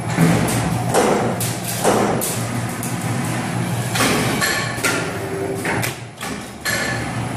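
CNC transformer lamination cut-to-length line running: its shear and punch strokes on silicon steel strip make several sharp thuds at uneven intervals over a steady machine hum.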